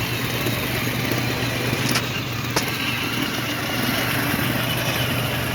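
A steady low motor hum under a busy outdoor noise bed, with two short clicks about two seconds in.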